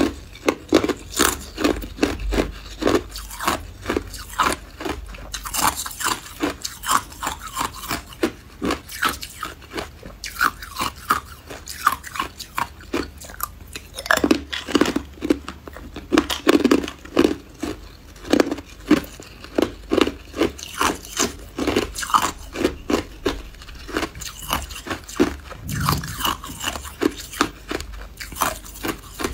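A person biting and chewing hard clear ice: rapid sharp crunches, several a second.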